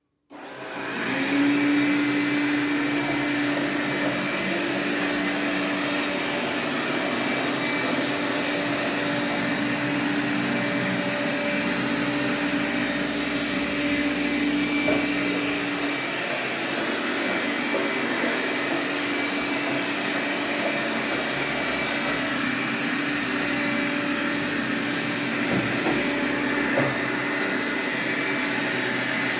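Xiaomi Mi Robot Vacuum Mop starting up, its suction fan spinning up over about a second and then running steadily. A low steady hum runs under the fan noise and drops out about halfway through.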